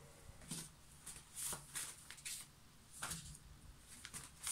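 Faint rustling and light scrapes of a paper card being handled and laid down on a wooden desk, a handful of short sounds spaced about a second apart.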